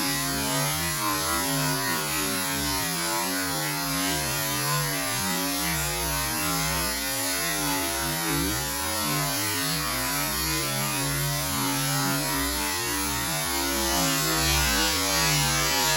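Steady rushing noise of a waterfall, with a low wavering hum underneath.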